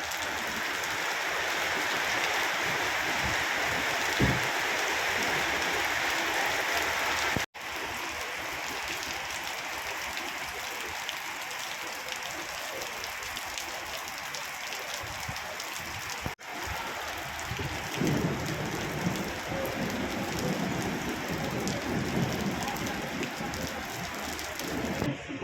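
Rain falling steadily, a dense even hiss of drops on surfaces. The sound cuts out for an instant twice, and from about two-thirds of the way through a low rumble joins the rain.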